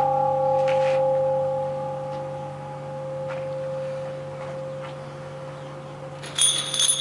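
A church bell's ringing dies away slowly after a strike, several steady tones fading together. Near the end a high, metallic jingling starts suddenly.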